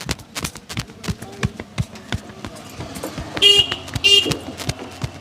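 Quick, irregular hand slaps and taps of a massage, several a second. Two short vehicle horn toots sound from the street about three and a half and four seconds in.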